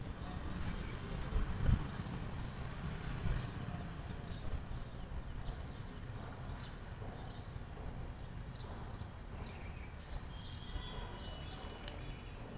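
Outdoor street ambience: a steady low rumble with small birds chirping throughout, and a couple of dull low thumps about a second and a half and three seconds in.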